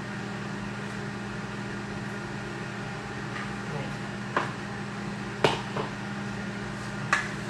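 Steady hum of a running microwave oven, with a few short knocks of a utensil against a plastic mixing bowl in the second half as flour is worked into the batter.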